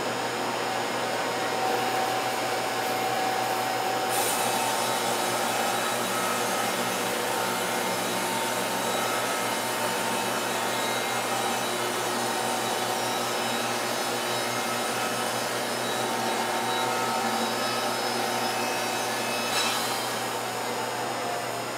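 Wood-Mizer LT50 band sawmill running under load, its band blade sawing through an oak log: a steady, dense mechanical noise with a constant hum, growing brighter about four seconds in.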